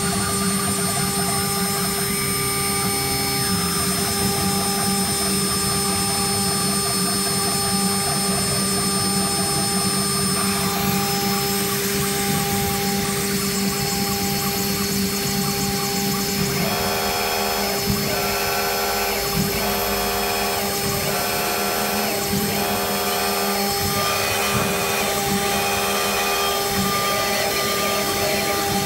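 CNC router spindle running with a steady whine as its bit cuts into a turning wooden blank on the rotary axis. About halfway through, a pulsing set of higher tones joins in and repeats about once a second.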